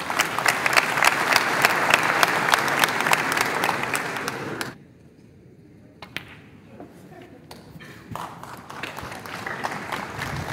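Audience applauding for about four and a half seconds, then stopping abruptly. About six seconds in comes a sharp click of a snooker cue striking the cue ball, and a second round of applause builds near the end as the black is potted.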